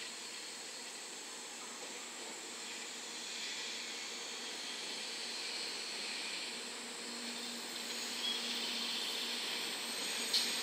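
JR West 700 Series RailStar Shinkansen train moving slowly along the station platform: a steady hiss that grows a little louder, with a faint low hum partway through and a short click near the end.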